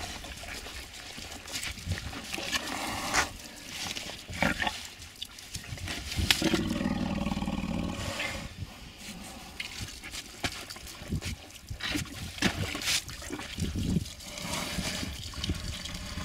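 Water trickling from a plastic bottle poured out beside a trapped elephant's trunk, with scattered clicks. A drawn-out low animal sound from the elephant comes about six seconds in and lasts a couple of seconds.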